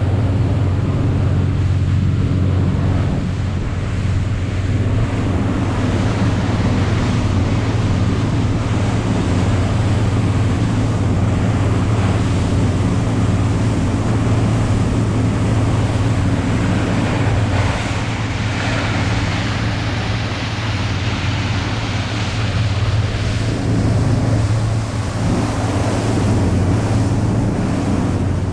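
Small cabin motorboat under way at speed: its engine runs with a steady low drone under the rush of the wake and wind buffeting the microphone.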